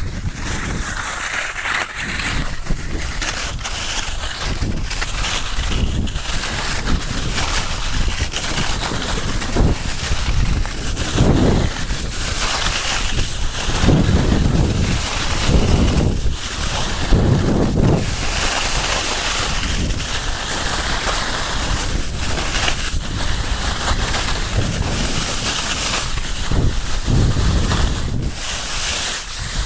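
Wind buffeting the microphone over the hiss of skiboards sliding on spring snow. Heavier low rushes swell now and then through the middle.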